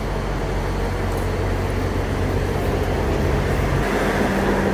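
A vehicle running: steady rumbling noise under a low engine hum, whose tone shifts near the end.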